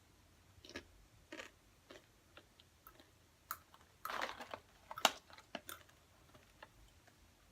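Two people chewing toasted coconut chips: irregular crisp crunches, with a denser run of crunching about four seconds in.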